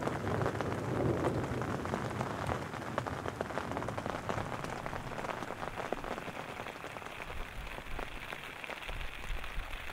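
Steady rain falling, a dense crackle of many small drops, with a low rumble coming up near the end.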